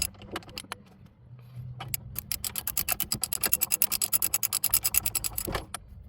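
Socket ratchet's pawl clicking in quick runs, about ten clicks a second, as a brake caliper bracket bolt is backed out the rest of the way. The clicking is loudest and fastest from about two seconds in, then stops shortly before the end.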